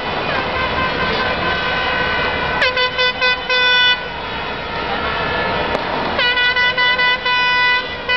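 Air horn sounding two runs of short rhythmic blasts, about three a second, one about two and a half seconds in and another near the end, each run opening with a falling swoop in pitch. Underneath is the steady noise of a huge stadium crowd.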